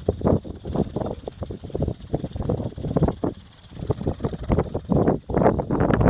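Strong gusty wind buffeting the microphone, with the fabric streamer of a kinetic wind sculpture fluttering as its arm swings. The gusts come in uneven surges, dip briefly near the end, then come back stronger.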